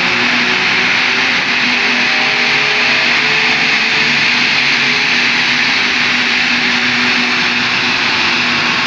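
Steady loud roar of a car's driven tyres spinning on rolling-road dyno rollers, with a steady low hum under it and no change in pitch.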